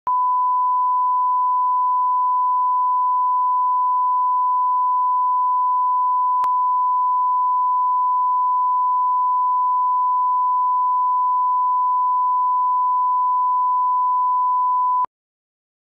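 Steady 1 kHz line-up test tone, one pure unbroken pitch played with colour bars, that cuts off suddenly near the end.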